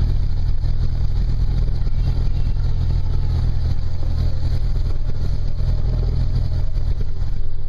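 Cessna 172's piston engine and propeller running steadily at low power, a continuous deep drone heard from inside the cabin.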